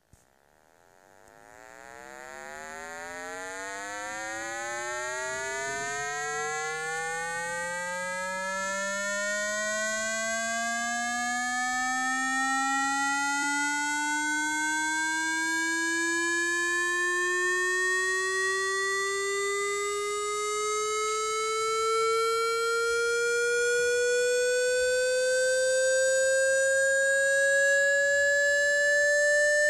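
Electronic test-tone frequency sweep, a buzzy tone with overtones that glides steadily upward from a low hum to about 600 Hz. It swells in from quiet over the first few seconds. It is a speaker-cleaner tone played to shake water out of a phone speaker.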